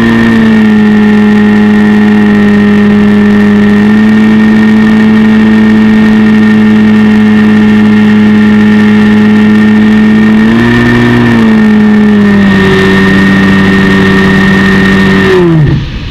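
RC plane's motor and propeller running close to the onboard microphone with a steady pitched drone, which steps up and down in pitch a few times as the throttle changes. Near the end the pitch falls away quickly as the throttle is cut, leaving a windy hiss.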